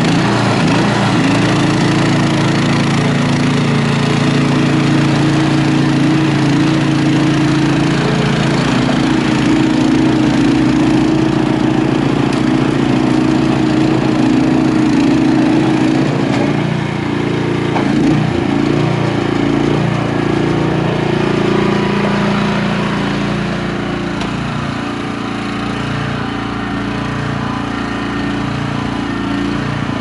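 Honda HSS1332ATD two-stage snowblower's single-cylinder Honda GX390 engine running steadily under load while clearing wet snow, a little quieter toward the end.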